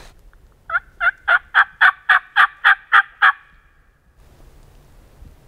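Hen-turkey yelping, most likely run on a hunter's turkey call to draw a gobbler: a series of about ten evenly spaced yelps, about four a second, over some three seconds.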